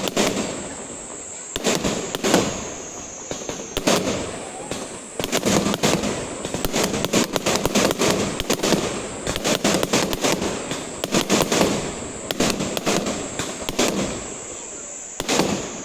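Fireworks display: a rapid, continuous barrage of bangs and crackling bursts, densest in the middle stretch.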